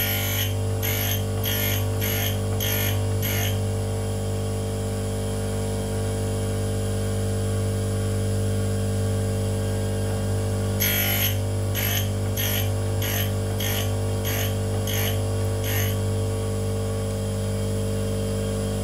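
Union tool and cutter grinder's motor and wheel running with a steady hum, while the endmill's end face is stroked against the wheel, grinding the secondary relief with a light cut of about 0.04 mm. The strokes come as short grinding hisses about two a second: six near the start, and about nine more from about eleven seconds in.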